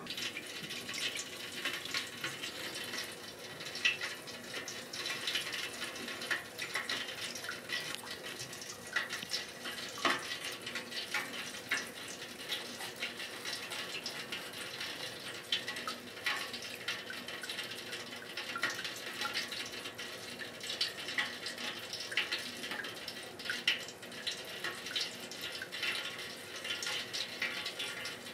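Breaded oysters deep-frying in lard: a steady sizzle with many small pops and crackles, a few louder pops standing out.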